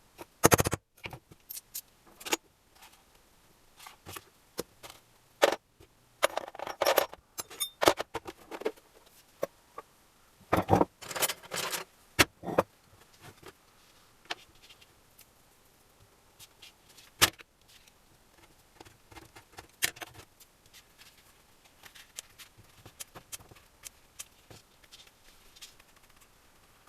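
Irregular clinks and clatter of metal tools and engine parts being handled and set down, with denser bursts of jingling a third of the way in and again near the middle.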